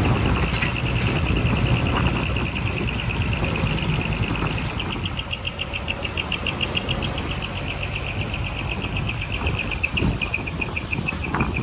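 Heavy earthmoving machine's diesel engine running with a steady low rumble, under a fast, even insect trill that goes on throughout.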